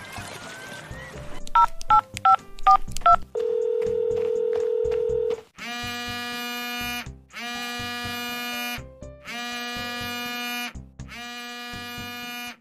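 A phone call going through: a quick run of keypad dialing beeps, a steady ringback tone held for about two seconds, then a mobile phone ringtone ringing four times, each ring a bit over a second long.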